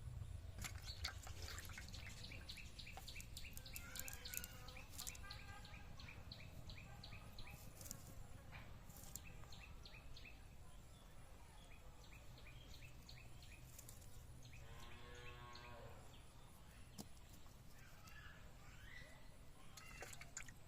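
Rural outdoor ambience: birds chirping in quick repeated notes over a steady low hum, with one drawn-out animal call about fifteen seconds in.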